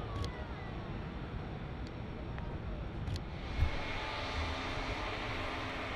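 Jet airliners taxiing at idle thrust: a steady rumble and hiss of the engines, with a low buffeting rumble underneath. About three seconds in the sound turns brighter, with a steady engine whine.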